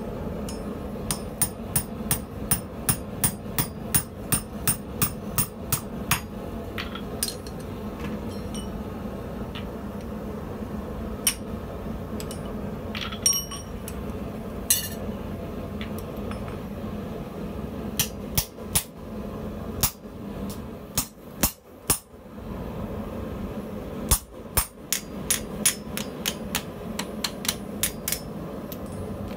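Blacksmith's hand hammer striking hot steel on an anvil and driving a punch into it, in quick runs of sharp metallic blows about three a second with scattered single blows between, over a steady background hum.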